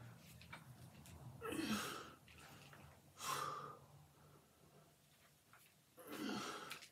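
A man breathing out hard with each dumbbell curl under exertion: three loud, forceful breaths about one and a half, three and six seconds in, with quieter breathing between.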